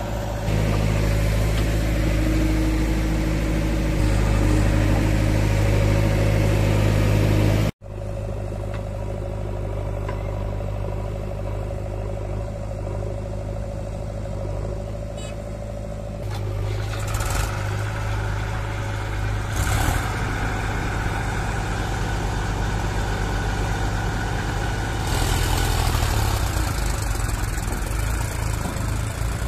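Diesel engines of a JCB 3DX backhoe loader and a farm tractor running steadily, mostly around idle. The sound cuts out for an instant about a quarter of the way in, and the engine note shifts a couple of times later on.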